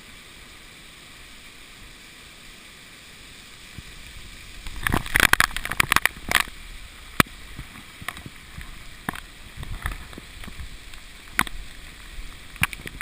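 Hurricane water splashing and sloshing: a steady hiss at first, then from about five seconds in a flurry of sharp splashes and knocks, with scattered smaller ones after.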